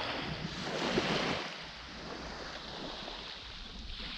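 Small waves washing up on a sandy shore and drawing back, one swelling about a second in and then easing, with some wind rumble on the microphone.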